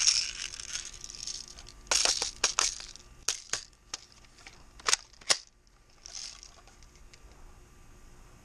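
Airsoft pump-action shotgun being loaded and handled: a string of sharp plastic clicks and clacks, ending in two sharp ones close together about five seconds in.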